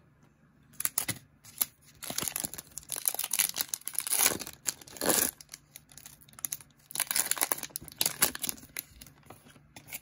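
Foil wrapper of a Topps Chrome trading card pack being torn open and crinkled, in a long run of ripping and crackling bursts.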